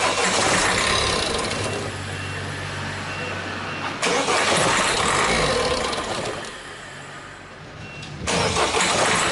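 Peugeot 3008/308 engine running with an abnormal clacking noise, put down to a clacking injector. The sound surges suddenly three times, each surge dying away over about two seconds.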